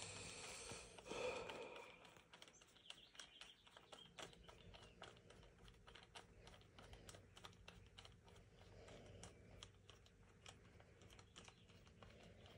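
Faint, irregular small metal clicks and ticks as a T20 Torx driver turns a screw in a rifle stock assembly, with a brief louder sound about a second in.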